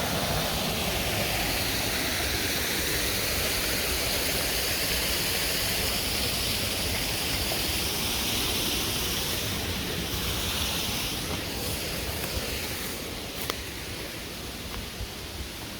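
Stream water spilling over an old sawmill dam: a steady rushing, a little quieter in the second half.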